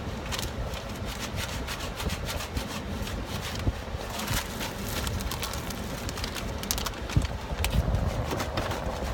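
Instant cold pack being shaken fast to activate it and make it go cold: crinkling plastic and rattling granules as rapid irregular crackles, over the low hum of a car cabin.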